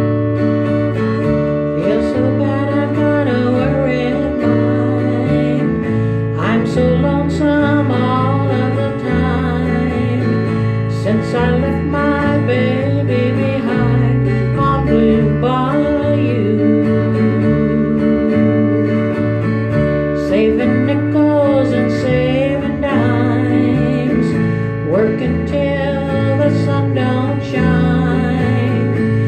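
Small country-style band playing an instrumental tune: a bass line moving note by note under strummed guitar chords, with a wavering melody carried by a harmonica.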